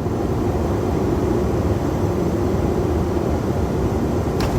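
Airbus A330 flight-deck noise at touchdown and the start of the landing roll: a steady rumble that steps up slightly at the start, with a short click near the end.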